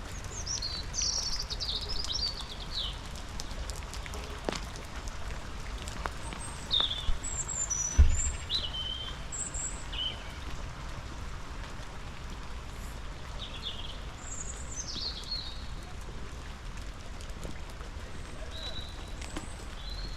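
Songbirds chirping and trilling in short phrases over a steady patter of rain, with scattered drip clicks and one sharp thump about eight seconds in.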